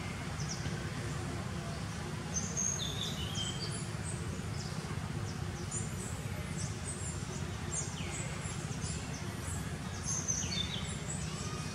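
Birds chirping and calling in short, high notes, many of them quick sweeps in pitch, coming thickly from about three seconds in, over a steady low rumble.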